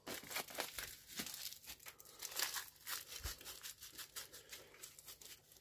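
Aluminium foil crinkling and crackling irregularly as it is pressed and crimped down by hand over a jar lid.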